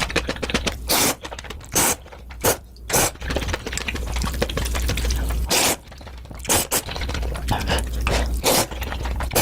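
Close-miked eating of Indomie instant noodles: wet chewing and slurping, with short loud bursts every second or so.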